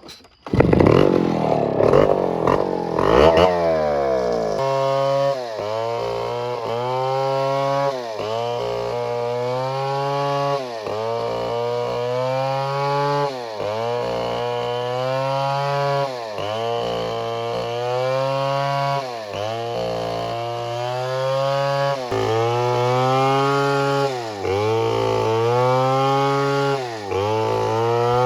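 Chainsaw engine coming in suddenly and running rough for the first few seconds, then held at high revs. Its pitch dips briefly and recovers about every second and a half.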